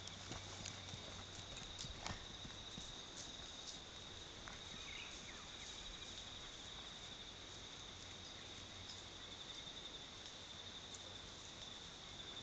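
Faint, irregular hoofbeats of a pony moving over grass, with a steady high-pitched insect chirring underneath.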